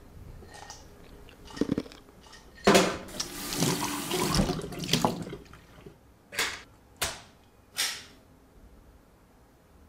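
Kitchen mixer tap running water into a glass over a stainless steel sink for about two and a half seconds, starting with a sharp clunk. Three short swishes follow about a second later, each half a second apart.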